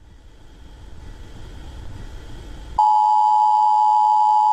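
A low rumble swells for nearly three seconds. Then the loud, steady two-tone emergency alert attention signal starts abruptly, the tone that announces an emergency broadcast.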